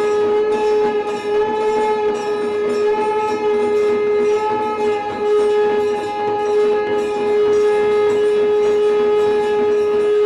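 Conch shell (shankh) blown in one long, sustained note that wavers slightly in pitch now and then.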